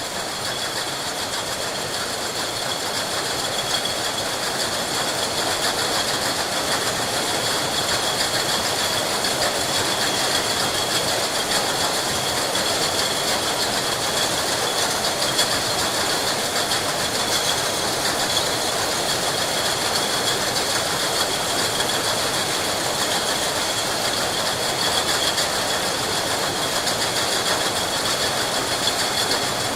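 Many glass bottles in a factory clinking and rattling against each other in a steady, dense stream, with a continuous high ringing from the glass.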